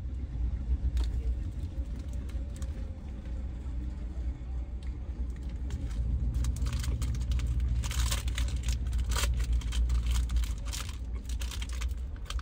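Chewing and crunching of a hard, crispy-topped Alani Nu Fit Snacks cookie dough protein bar, with a granola-like crunch; the crunching grows busier from about six seconds in. A steady low rumble from the car runs underneath.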